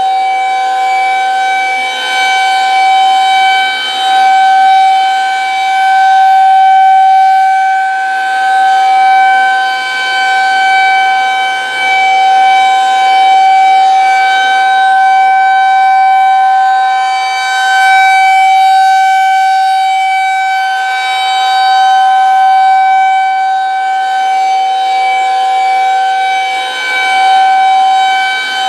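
Federal Signal 2001-130 rotating outdoor warning siren sounding its steady Alert tone during a test: one held pitch that does not rise or fall, swelling and fading in loudness every few seconds as the rotating head sweeps past.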